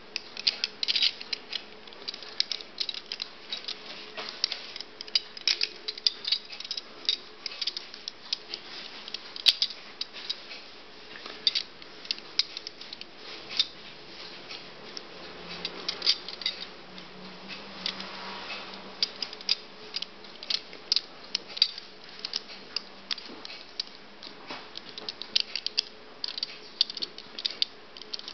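Die-cast metal pieces of a Hanayama Cast Vortex puzzle clicking and clinking against each other as they are turned and slid in the hands, in irregular quick taps throughout.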